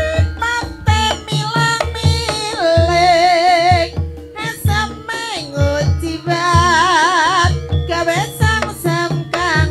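Javanese reog kendang accompaniment music: kendang hand drums keep a steady pattern of strokes under a melodic ensemble, while a high voice sings long notes with a wide wavering vibrato.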